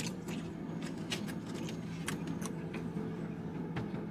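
A person chewing seasoned french fries close to the microphone: many small, irregular mouth clicks and smacks. Under it runs the steady low hum of the car.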